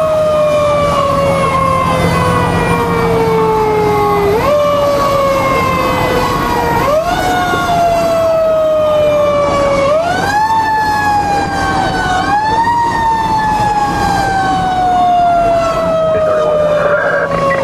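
Federal Signal rotary mechanical siren heard from inside the fire engine's cab. Its pitch slowly winds down and is brought quickly back up four times, with the truck's engine drone beneath.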